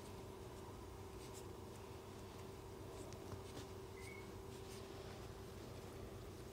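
Faint scratching and rustling of chihuahua puppies playing on carpet among plush toys, over a steady hum, with one brief faint squeak about four seconds in.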